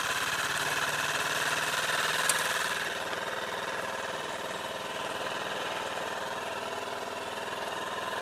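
Parsun outboard motor running steadily under way, with a single sharp click about two seconds in; the hum drops a little in level about three seconds in.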